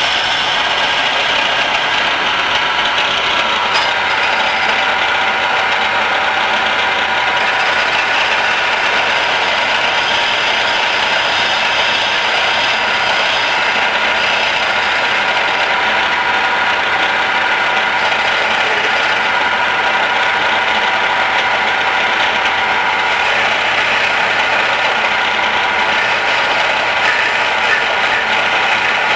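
Homemade electric wood lathe running steadily, a hand turning tool scraping and cutting the spinning wooden spindle.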